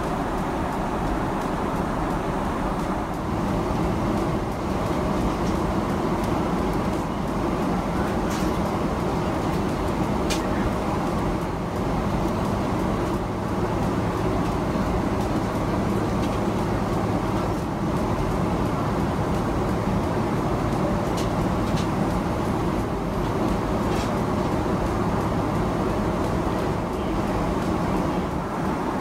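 Steady roar of airflow and engine noise inside a Boeing 777-200LR cabin in cruise, with a few faint clicks.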